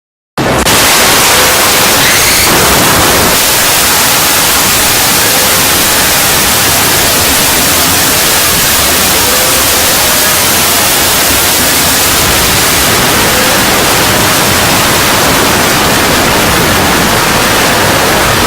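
Loud, steady static hiss like white noise, cutting in abruptly from dead silence about half a second in and holding at an even level.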